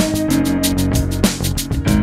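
Background music with a steady beat, held instrument notes and a bass line.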